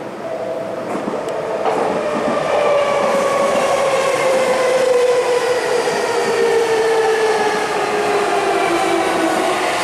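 Toei 6300 series electric train pulling into the station and braking, its motor whine falling steadily in pitch and growing louder as it draws in. A few clicks come about a second in.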